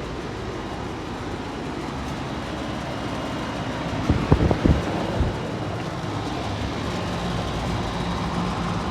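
Outdoor air-conditioning condensing units running: a steady rush of condenser fans over a low compressor hum. A few dull thumps come about four to five seconds in.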